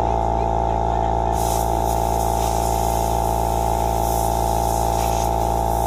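A steady electrical hum made of several held tones, unchanging in pitch and level.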